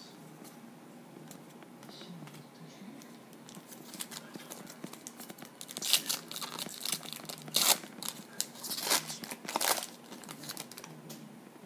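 Baseball card pack wrapper being torn open and crinkled: a run of crackling rips and crinkles starting about four seconds in, loudest around the middle, dying away near the end.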